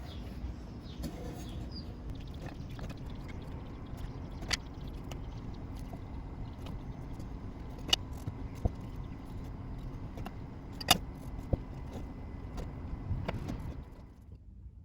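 A steady mechanical hum with a few sharp clicks and knocks of tools on wood, the hum cutting off about a second before the end.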